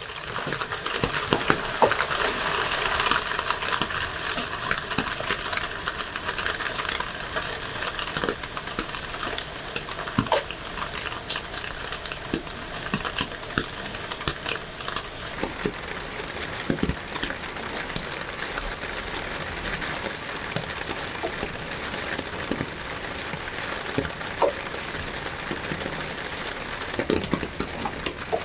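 Steady rain falling on leaves, with individual drops ticking throughout; it fades in at the start and eases slightly about halfway through.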